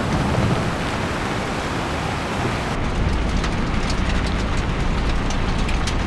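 Stock sound effect of a steady rushing noise with a low rumble. About three seconds in it turns deeper and duller, with small ticks over it.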